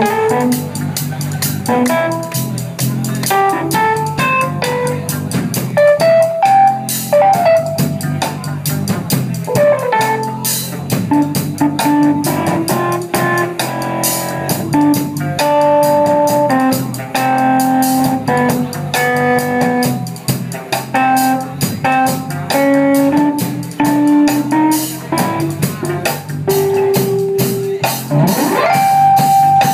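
Live band playing: electric guitar and keyboard over a drum kit keeping a steady beat.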